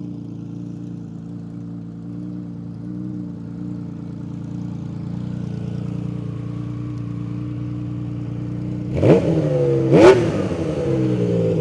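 Honda CBX1000Z's inline-six engine with a six-into-six exhaust, idling steadily. About nine and ten seconds in come two sharp throttle blips, each rev rising quickly and then falling back toward idle.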